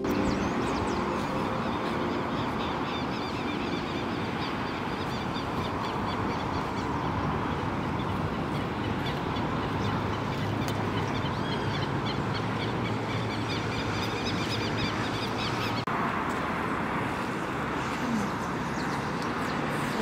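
Outdoor ambience of many birds chirping over a steady wash of road traffic noise.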